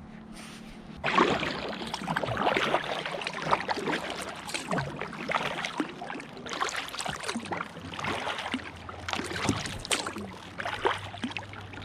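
Kayak paddle strokes splashing in the lake water, starting about a second in and continuing as a run of irregular splashes.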